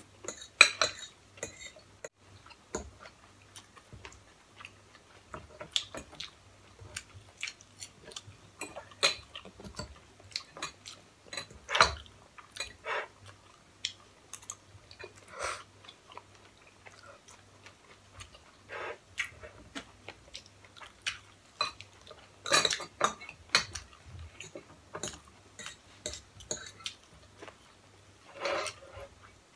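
Metal forks clinking and scraping on ceramic plates, mixed with close-up chewing of noodles and chicken. The clicks come irregularly, a few at a time, with a handful of louder ones.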